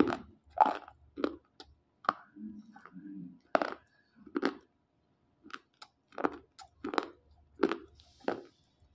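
Dry slate pencils being bitten and chewed: a run of short, sharp crunches at uneven intervals, with a brief pause about halfway through.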